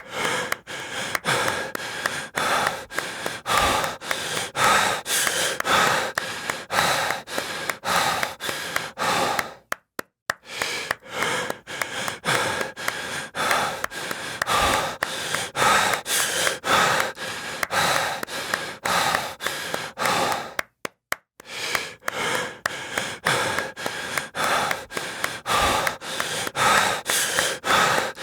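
Heavy breathing with hand claps, about two a second, in a repeating loop that drops out briefly about every eleven seconds.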